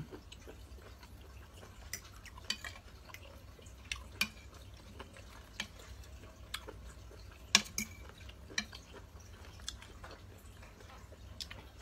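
Metal spoon and fork clinking and scraping against a plate: scattered irregular taps, the loudest about seven and a half seconds in.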